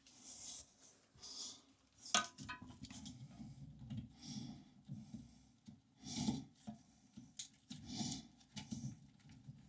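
Faint, intermittent rubbing and scraping with a sharp click about two seconds in: a toilet supply line's coupling nut being threaded by hand onto an angle stop valve.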